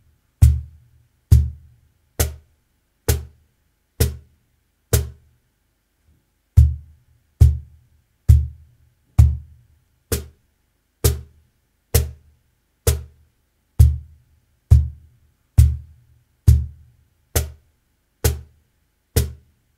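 Single open-hand strokes on a Cruz wooden cajon at a slow, even pulse of just under one a second, each with a deep boom. One beat is left out about five seconds in.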